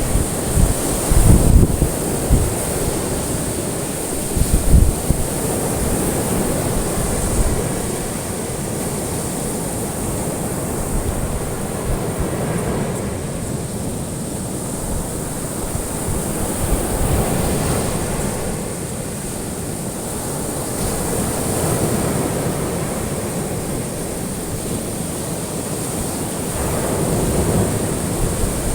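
Ocean surf breaking and washing on a shore in slow swells that rise and ease every few seconds. In the first few seconds, gusts of wind buffet the microphone with low rumbles.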